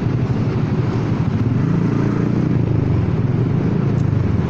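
Honda Forza 300 scooter's single-cylinder engine running at low speed in traffic, a steady low exhaust note coming from its broken exhaust pipe.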